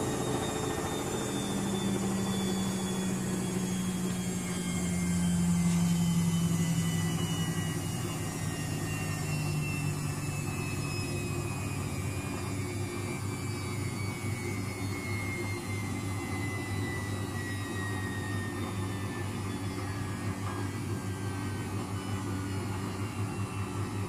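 Luxor WM 1042 front-loading washing machine spinning an unbalanced load and winding down. The motor's whine falls steadily in pitch over a low hum with a fluttering pulse, and a deeper drone is louder for the first several seconds.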